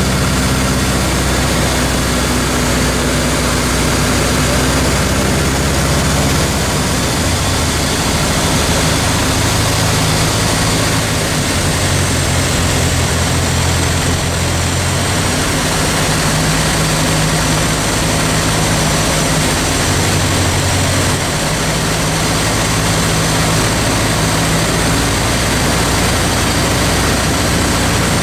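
Light aircraft piston engine and propeller, heard from inside the cockpit, running steadily with heavy air noise. The engine note shifts several times, on the final approach to landing on a mountain grass strip.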